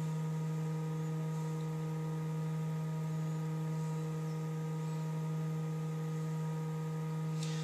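Steady electrical mains hum: a constant low drone with a ladder of fainter higher overtones, unchanging throughout.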